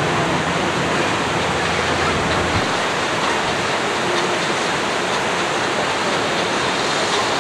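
River water rushing steadily through a rocky gorge, an even hiss.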